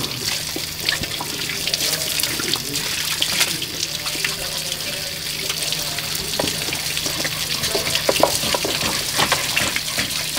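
Water from a garden hose spraying onto wet puppies and splashing on a concrete floor: a steady hiss of running water, with a faint steady low hum underneath.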